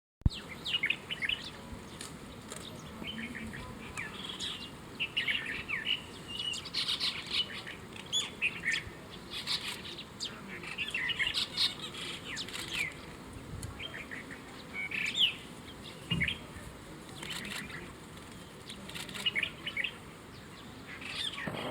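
Many small birds chirping, with short, quick chirps in scattered clusters over a faint steady hiss, and a sharp click at the very start.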